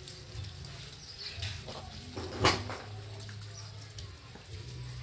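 Small puppy whimpering during a bath, with one sharp, loud yelp about halfway through.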